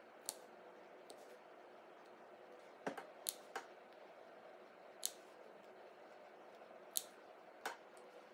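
Small scissors giving about seven quiet, sharp snips at irregular intervals over faint room hum. They are clipping notches into the seam allowance of a curved armhole seam through the cotton and quilted-lining layers, so the curve will lie flat once turned.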